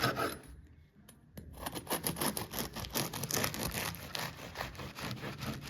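A crusty loaf of bread being sliced: after a brief pause about a second in, a dense, rapid crackling and rasping as the blade cuts through the hard crust.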